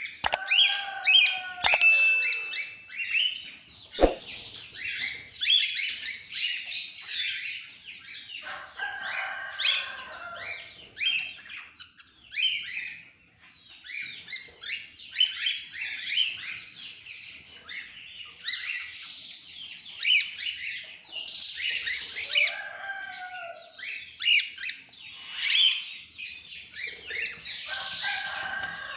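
A flock of cockatiels chirping and calling continuously over one another, with wings flapping and a sharp click about four seconds in.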